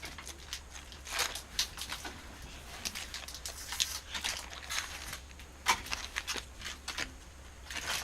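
Foil Pokémon booster pack wrapper being torn open and crinkled by hand: a run of short, irregular crackling rustles.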